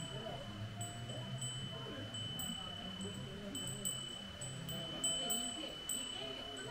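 Wind chimes ringing, a steady high tone with a few stronger strikes about four, five and six seconds in.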